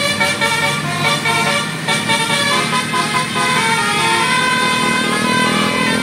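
A bus's Basuri 'telolet' multi-tone air horn playing a tune: a run of loud, changing horn notes, several pitches sounding together.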